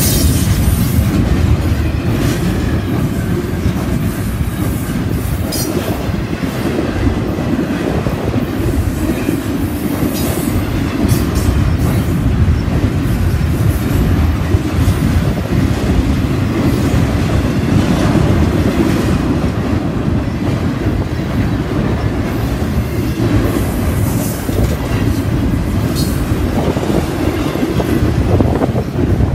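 Double-stack intermodal freight train's well cars rolling past close by: a steady, loud rumble of steel wheels on rail with clickety-clack, and a few brief high-pitched squeaks.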